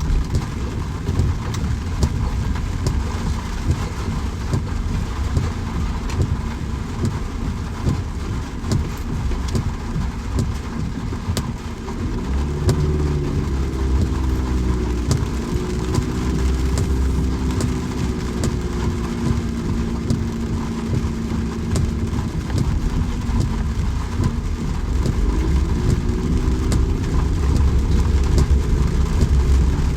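Steady rain with many small drop ticks, and from about twelve seconds in a motor vehicle's engine running under it, its low hum wavering slightly in pitch.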